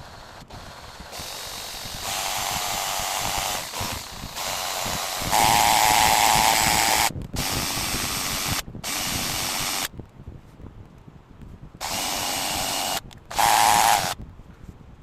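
Electric drill run in a series of short trigger bursts, stopping and starting about eight times. The bursts about five seconds in and near the end are the loudest.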